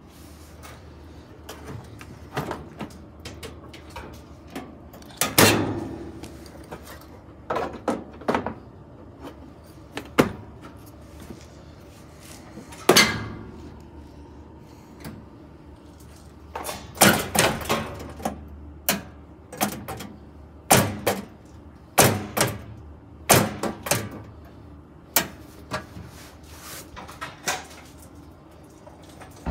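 Irregular metal knocks, clanks and rattles from the sheet-metal cabinet and parts of a 1974 Whirlpool belt-drive washer being handled while it is taken apart for scrap, with the impacts coming thicker in the second half.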